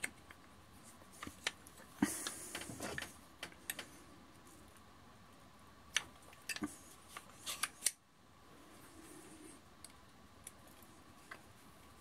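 Metal clicks and a short scraping rattle as a Walther-Colt 1911 .22 pistol is handled and its slide drawn off the frame during takedown. The scrape comes about two seconds in, and a quick cluster of clicks follows between six and eight seconds in.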